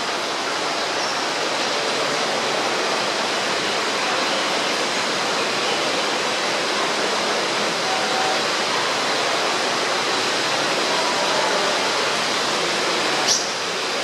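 Steady rush of falling water from the rainforest exhibit's waterfall, an even hiss without any pitch. A short sharp click comes near the end.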